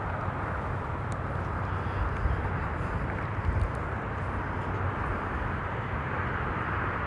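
Steady open-air background noise: an even low rumble with hiss and no clear single source.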